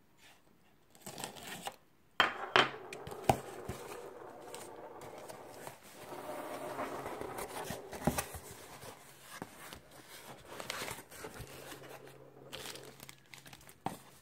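A cardboard shipping box being opened by hand: flaps and tape tearing and several sharp snaps, then plastic air-pillow packing crinkling and rustling as it is handled.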